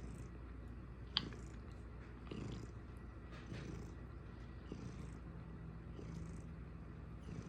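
Domestic cat purring steadily, a low rumble that swells about once a second with its breathing. A single sharp click about a second in.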